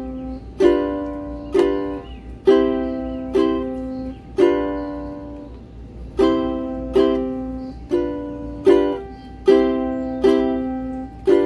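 Ukulele strummed with single strums about one a second, each chord left ringing, working through the pattern C, C, G7, G7, C, C, G7 twice, with one chord held longer and a short pause about halfway.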